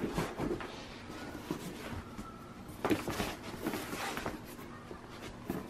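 Quiet shuffling of socked feet on a rubber yoga mat, with a soft knock about three seconds in.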